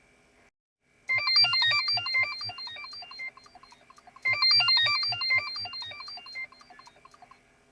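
Nokia 6820 mobile phone playing a ringtone through its speaker: a quick, bright melody over a bass line. It starts about a second in, plays its phrase twice and stops shortly before the end.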